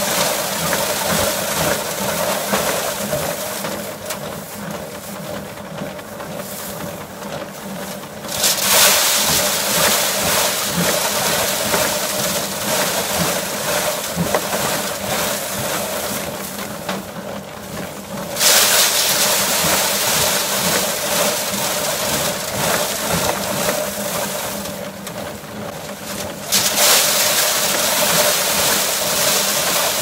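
Small powered rice thresher running steadily with a constant hum. Three times, about ten seconds apart, a loud rushing thrash starts suddenly as a bundle of rice stalks goes into the drum, then dies away over several seconds.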